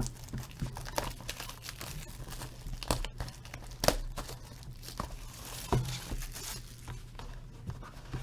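Plastic wrapping crinkling and tearing in irregular crackles as a sealed box of trading cards is unwrapped by hand.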